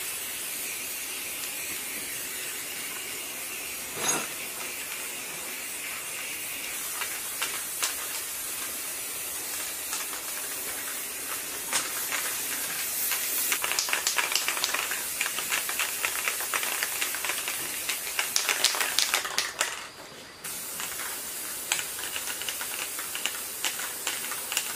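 Aerosol spray-paint can hissing steadily as paint is sprayed, with a single knock about four seconds in and sharp crackling ticks through the middle stretch; the spraying stops briefly about twenty seconds in and then starts again.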